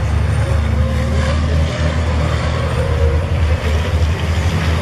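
Racing trucks' big diesel engines running hard as the trucks pass on the circuit: a steady, loud, low engine sound.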